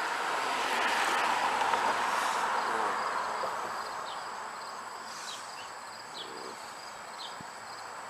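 A broad rushing noise swells over the first couple of seconds and slowly fades, like a vehicle passing by. A few faint short high chirps sound about halfway through.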